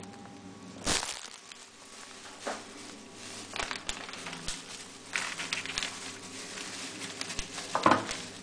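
Plastic and cardboard food packaging crinkling and knocking as it is handled, in irregular rustles, with a sharp knock about a second in and the loudest rustle near the end.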